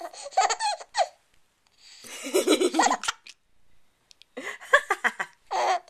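Young baby laughing in three short bouts of giggles, each a quick run of pulses, with brief pauses between.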